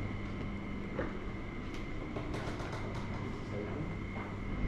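Steady low background hum of a large indoor hall, with a thin high whine held over it and a few faint light clicks.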